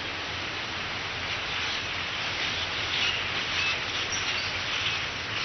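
A large flock of common starlings chattering together, a dense steady mass of squeaks, chirps and brief whistles.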